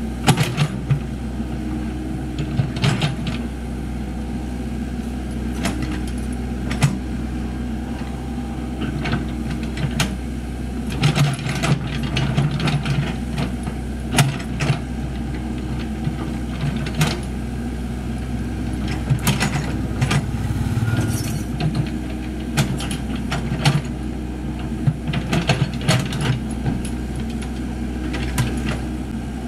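Komatsu PC78US mini excavator's diesel engine running steadily under digging load, with frequent short, sharp metallic clinks and knocks from the bucket and its linkage as it scrapes and scoops soil.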